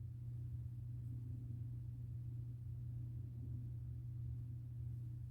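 A steady low electrical hum with faint hiss above it, unchanging throughout.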